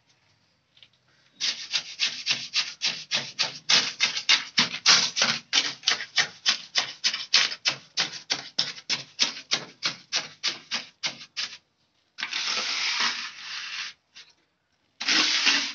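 Mason's trowel scraping and smoothing wet cement mortar over a brick base in quick strokes, about four a second, then two longer, slower scrapes near the end.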